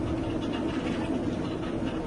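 Olive oil mill machinery running: a steady hum with a light, continuous rattle.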